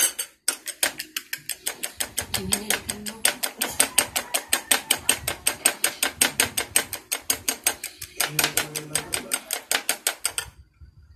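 Eggs being beaten by hand in a glass bowl: the utensil clinks against the glass in a fast, even rhythm of about six strokes a second, stopping near the end.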